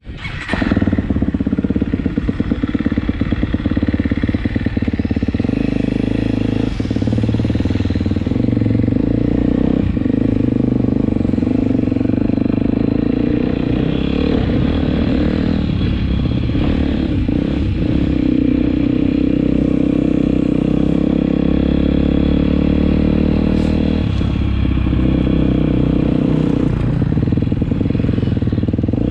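Motocross bike engine running at low speed, heard close up from an onboard camera, its note shifting up and down with the throttle.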